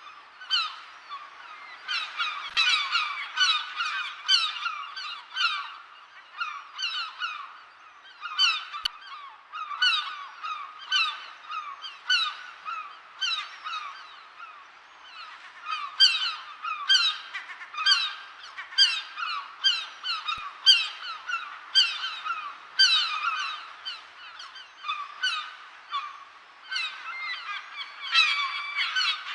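Seagulls calling: short, harsh cries repeated about two or three a second in bouts, with brief lulls between them.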